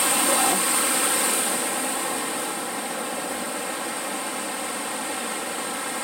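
Steady rushing of creek water flowing over rocks, easing off a little about two seconds in.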